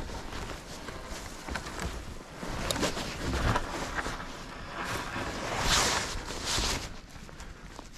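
Footsteps in snow: irregular crunching and scuffing, with a few sharp clicks; the loudest crunches come about three and about six seconds in.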